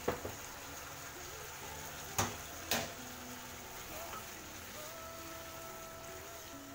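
Thick chicken stew sizzling in a nonstick pot over high heat while it is stirred and tossed with a spatula. Three sharp knocks of utensils against the pot cut through: one at the start and two more about two seconds in, half a second apart.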